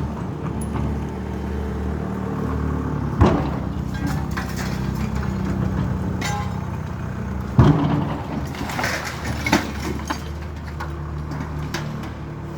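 Diesel engine of demolition machinery running steadily, with loud crashes of breaking material about three seconds in and again near eight seconds, and a smaller crack a little after nine seconds.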